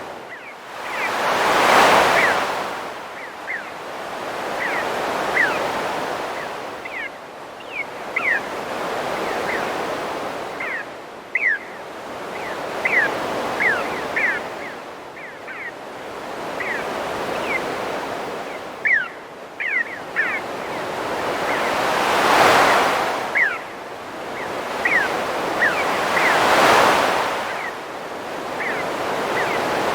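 Ocean waves breaking on a beach, the surf swelling and ebbing every several seconds, with the biggest breakers about two seconds in and again near twenty-two and twenty-seven seconds. Birds call throughout with many short, quick chirps over the surf.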